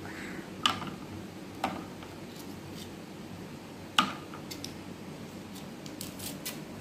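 Mentos candies dropped one at a time into a cut-down plastic bottle of vinegar, three sharp clicks as they land, the loudest about four seconds in, followed by a few faint ticks.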